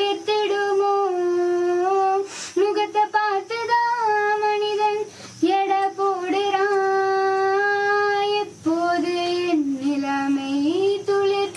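A woman singing a slow song solo and unaccompanied, in long held notes with brief breaks between phrases.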